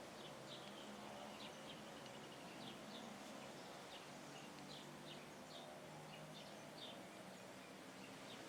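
Small birds chirping faintly: short, high chirps repeated irregularly, about two a second, over a faint steady background hum.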